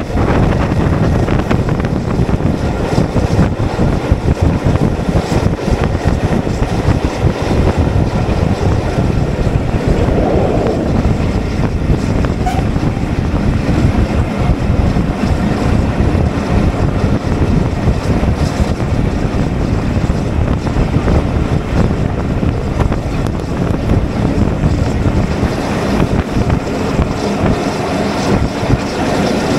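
BR Standard Class 4 tank steam locomotive 80136 running along the line, heard from aboard the moving train as a steady loud rumble, with heavy wind buffeting the microphone.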